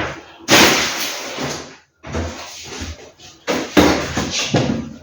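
Groceries being handled and unpacked: packaging rustling loudly in three bursts of about a second each, with knocks as items are set down.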